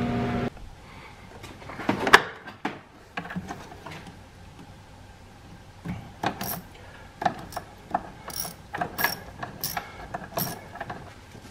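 Irregular clicks and knocks of hands working a rubber radiator hose back onto its fitting and fastening its metal hose clamp. The clicks come sparsely at first and bunch together in the second half.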